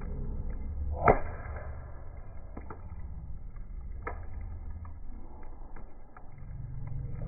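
Wood campfire crackling: scattered sharp pops over a low rumble, with one loud crack about a second in and another about four seconds in.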